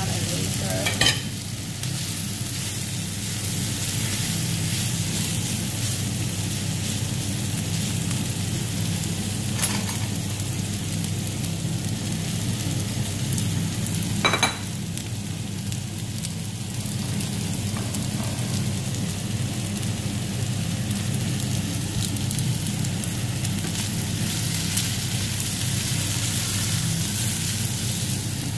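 Chicken tocino sizzling steadily as it fries in a nonstick pan, over a steady low hum. There are three brief sharp knocks, about a second in, near the middle and just past the middle.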